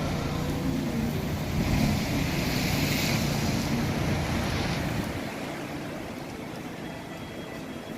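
Sea waves breaking and washing in, a hiss that swells about two seconds in and dies back by about five seconds, over a low rumble that eases near the end.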